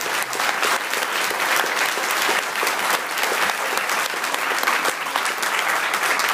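Audience applauding: many hands clapping together in a dense, steady stream.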